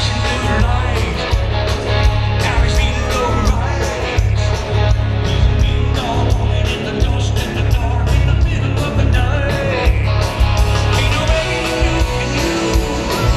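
Rock band playing live through a loud PA, heard from out in the crowd: a steady drum beat, heavy bass and a singing voice.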